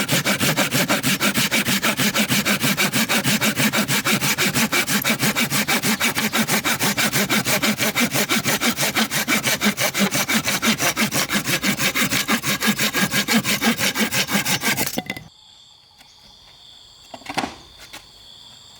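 Hand saw cutting through wood with fast, even back-and-forth strokes, stopping suddenly about fifteen seconds in. Then insects chirring faintly, and a single knock.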